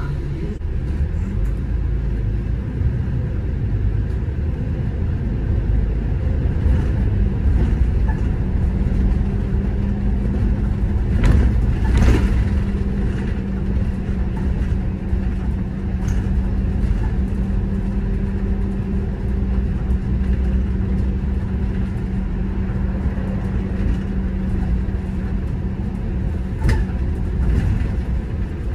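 City bus under way: steady engine and road rumble, with a steady hum through the middle stretch and a few knocks and rattles, the loudest about eleven to twelve seconds in.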